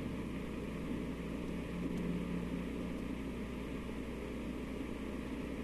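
Steady background hiss and low hum of an old recording, with no distinct events.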